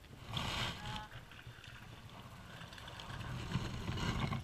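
Close handling noise: rustling and light plastic clicks as a small plastic fly box is handled and put away, loudest in the first second. A low rumble of wind on the microphone grows toward the end.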